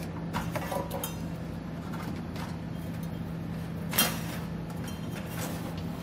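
Trailer wiring and a plastic airline-tube pull wire being pulled through behind a vehicle's rear bumper, rustling and scraping, with one sharp clink about four seconds in, over a steady low hum.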